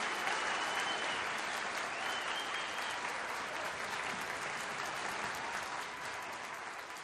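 Crowd applauding, with many hands clapping at once, dying away near the end.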